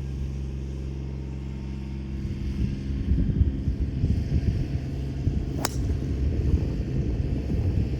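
A driver striking a golf ball: one sharp crack a little past the middle, heard over a steady low hum that turns into a rougher, uneven low rumble from about a third of the way in.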